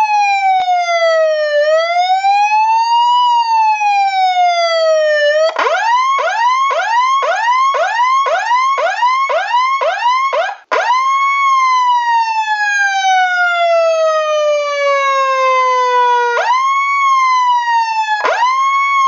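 Electronic emergency-vehicle siren cycling through its tones. It starts with a slow wail rising and falling between about 550 Hz and 1 kHz, then switches to a fast yelp of about two to three sweeps a second. After a brief break, it gives long slow falling sweeps, each beginning with a quick rise.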